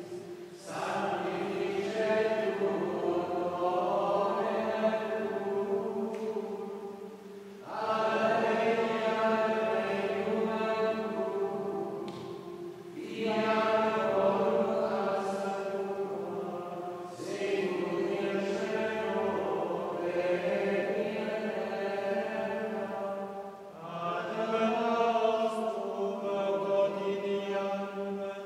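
Gregorian chant in Latin, sung in unison by a group of men's voices in a large stone church, in long phrases with short breaks for breath between them.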